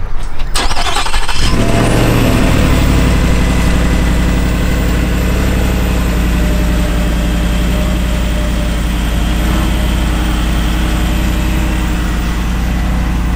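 Supercharged 5.0L Coyote V8 of a Shelby Super Snake Sport F-150 cold-started through its Borla dual side-exit exhaust. It cranks for about a second, fires with a quick rev flare that falls away, then settles into a steady, loud idle.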